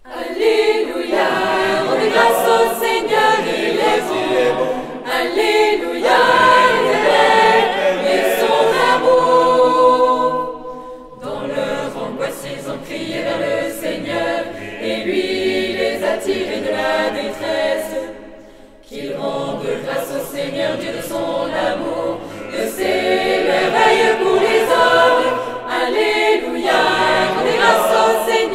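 Mixed choir of women and men singing unaccompanied in French, a psalm setting in several voice parts, with short breaks between phrases about ten and eighteen seconds in.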